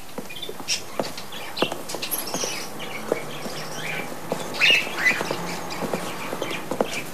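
Caged parrots squawking and chirping in short, scattered calls, with a few light knocks in between.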